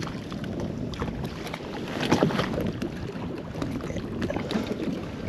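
Wind buffeting the microphone over water lapping against a kayak, with a few light knocks near the middle.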